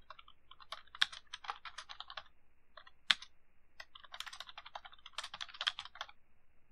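Recorded computer-keyboard typing played back after heavy effects processing, sounding tinny: quick runs of key clicks with the low end cut away, broken by short pauses, with two sharper, louder clicks about a second in and about three seconds in.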